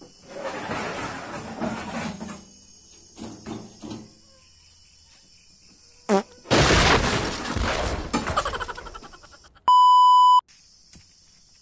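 Over a steady shrill of insects, some rustling and knocking, then a loud crash with a rattling, rustling tail that dies away over about three seconds. A flat electronic beep lasting under a second follows near the end.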